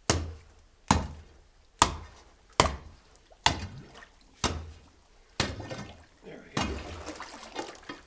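Thick lake ice under a few inches of standing water being chopped and broken with repeated blows. There are about nine sharp strikes, roughly one a second, each followed by a splash of water.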